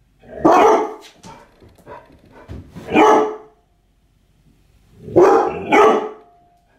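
Two Labrador retrievers giving warning barks at a truck outside: loud barks about half a second in and around three seconds, softer barks between, and a quick pair of loud barks a little after five seconds.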